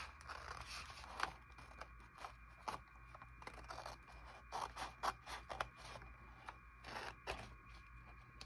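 Scissors cutting through a sheet of paper glued to a paper backing: a run of short, irregular snips.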